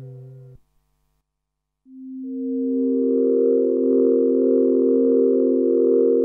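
Novation Peak synthesizer: the tail of the 'Zodiac' factory patch fades and cuts off about half a second in, and after a second's silence the 'Stillness' factory preset sounds a sustained pad chord, its notes entering one after another and swelling, with a soft shimmer above.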